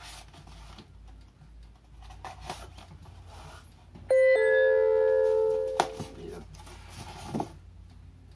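An electronic chime goes off about four seconds in: a steady tone held for nearly two seconds, then fading away. Around it, faint knocks and rustles of a cardboard box and its packing being handled.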